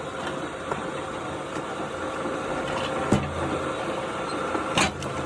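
Wood-splitting machine running steadily with a droning hum, with two sharp knocks, one about three seconds in and one near the end.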